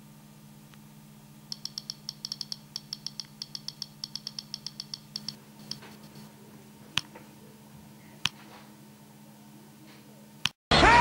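iPod click wheel ticking as the menu scrolls: a fast, uneven run of small sharp clicks lasting about four seconds, then a few single clicks from button presses. Loud rock music cuts in right at the end.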